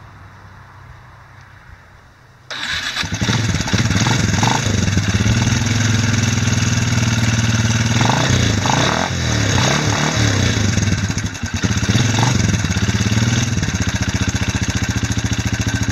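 Cold start of a Suzuki engine in a Chinese quad ATV: it fires abruptly about two and a half seconds in and runs, blipped up and down on the throttle a few times before settling to idle. It runs a little rattly, which the owner thinks may mean the valves need adjusting.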